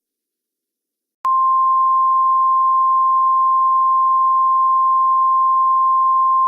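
Emergency-alert attention tone: a single steady pure tone just above 1 kHz, starting about a second in, held for about five seconds and cutting off sharply.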